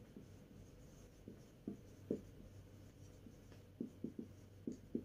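Marker pen writing on a whiteboard: faint, irregular short strokes of the felt tip as words are written out.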